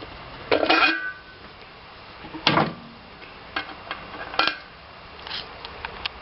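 A handful of separate light metallic clinks and knocks, some with a brief ring, spaced irregularly about a second apart; no engine running.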